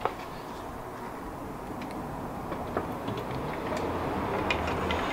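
Hydraulic floor jack being let down under the front of a Mk3 VW Golf: a steady low noise that grows slowly louder, with a few faint ticks as the car settles onto its newly lowered coilovers.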